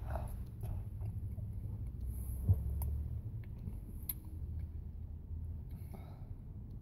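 Quiet mouth sounds of a spoonful of Frosty being eaten and swallowed, with a few soft clicks, the sharpest about two and a half seconds in, over a low steady hum inside the car.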